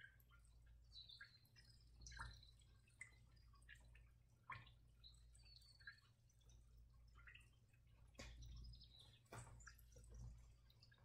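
Near silence: room tone with a steady low hum and faint, scattered ticks.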